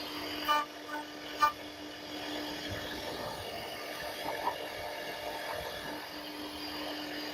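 CNC router cutting wood, with a steady spindle hum. Two sharp metallic clinks come about half a second and a second and a half in, the second the louder.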